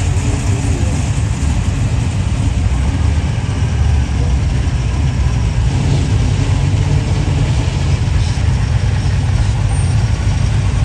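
Engines of a line of classic cars running at low speed as they roll slowly past one after another, a steady, deep engine sound.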